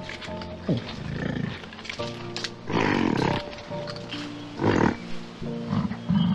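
Animal calls over background music: several short calls, the loudest about three seconds and about five seconds in.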